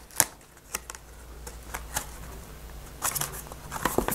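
Light clicks and rustles of a hardback picture book's pages being handled and turned, about a dozen short, irregular ticks.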